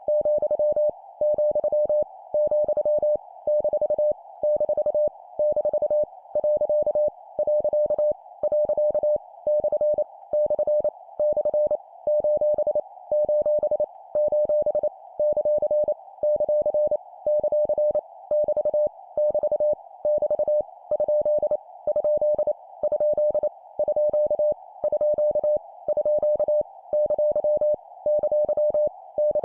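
Morse code practice tones sent at 25 words per minute. A single steady mid-pitched beep is keyed on and off in rapid dots and dashes, grouped into punctuation characters each repeated three times, with short pauses between groups. A faint hiss runs underneath throughout.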